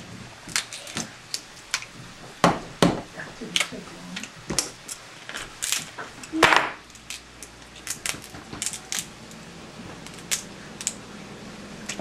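Cooked Dungeness crab shell being cracked and snapped apart by hand: a quick series of sharp clicks and crunches, with a heavier knock about six and a half seconds in.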